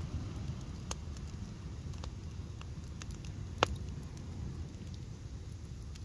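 Driftwood campfire crackling with scattered sharp pops. The loudest pop comes a little past halfway and throws up a shower of sparks. Underneath runs a low steady rumble.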